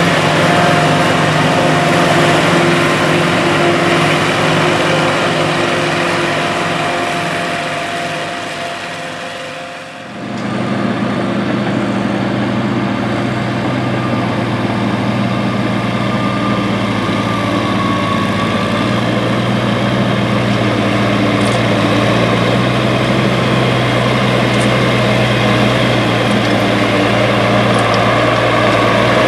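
Engines of a self-propelled forage harvester and a Farmall 806 tractor running steadily side by side while corn silage is chopped and blown into a wagon. About ten seconds in the sound fades briefly, then the Farmall 806's engine runs steadily on its own as it pulls the loaded silage wagon.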